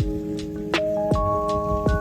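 Background music: sustained keyboard chords with a steady drum beat.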